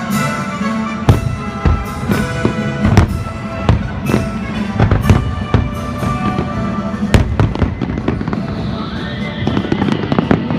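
Fireworks bursting in an irregular series of sharp bangs, at times several a second, over an orchestral show soundtrack.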